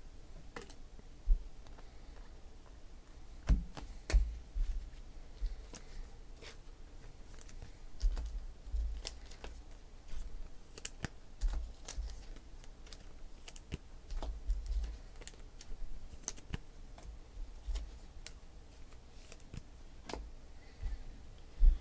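Sparse, irregular light clicks and taps with occasional low thumps: hands handling trading cards and packs on a tabletop.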